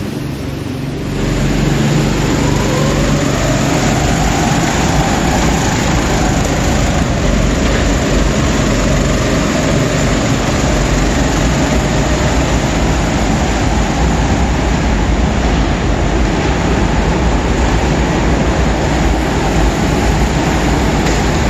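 A pack of go-karts pulling away from the start and racing round an indoor track: a loud, dense mix of kart motors that sets in suddenly and swells about a second in, with engine notes sweeping up and down as the karts accelerate and slow.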